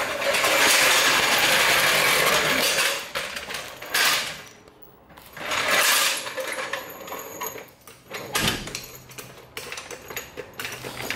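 A rushing noise for the first three seconds, then separate metallic clinks and knocks of tools working on the pickup's rear suspension, with short quiet gaps between them.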